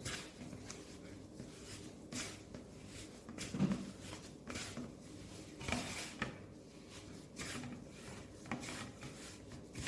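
Hands kneading soft flour dough: faint, irregular rubbing and pressing strokes, with an occasional soft thump.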